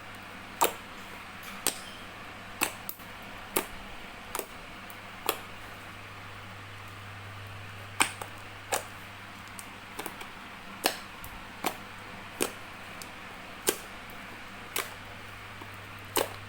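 Clear dish-soap slime being pressed and squeezed, giving sharp popping clicks at uneven gaps about once a second, with a short pause in the middle. A steady low hum runs underneath.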